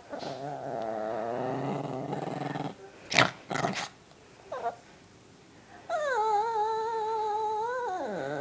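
A small long-haired dog growling angrily: a long low growl, two short sharp sounds about three seconds in, then about six seconds in a higher drawn-out whining growl that dips in pitch near the end.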